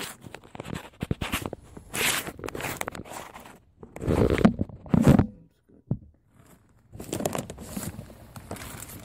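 Handling noise from a phone camera being propped into place: rubbing, scraping and small knocks against the microphone. The loudest is a heavy rub about four to five seconds in, followed by a single sharp click.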